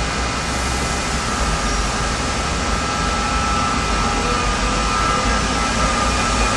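Seoul Metro Line 4 electric train with a Mitsubishi GTO VVVF inverter departing the station: a steady electrical hum with several held tones over a rumble, growing slightly louder near the end.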